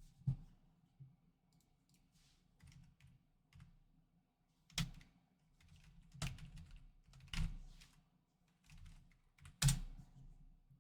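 A handful of sharp clicks and knocks, irregularly spaced, with fainter ticking and rustling between them.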